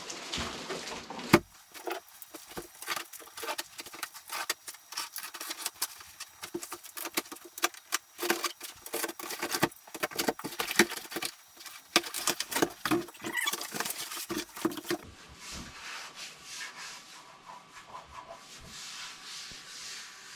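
Unpacking a boxed workbench: cardboard and foam packing rustling, scraping and clicking as they are handled, with a sharp knock about a second in and quieter rubbing over the last few seconds.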